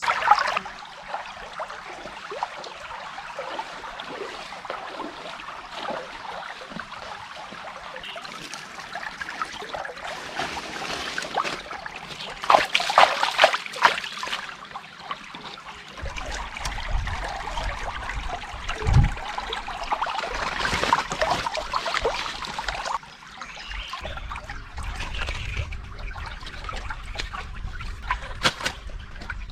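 Water trickling and splashing with a run of small clicks and taps, louder in two stretches.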